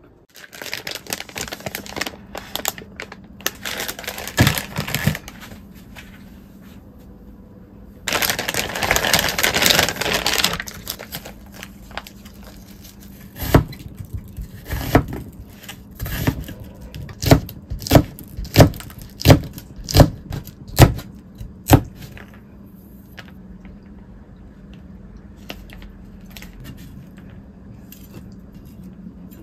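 Chef's knife dicing an onion on a plastic cutting board: about a dozen sharp chops, a little faster than one a second, then lighter taps. Before them comes a stretch of crackling and hissy noise.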